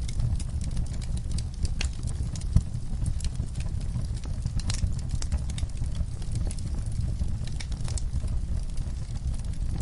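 Fireplace fire crackling, with sharp irregular pops over a steady low rumble of the flames; one louder pop comes between two and three seconds in.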